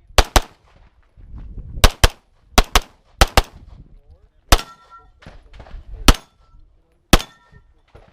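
Pistol shots fired in a timed course of fire: about ten sharp reports at uneven spacing, some in quick pairs, a few followed by a short metallic ringing.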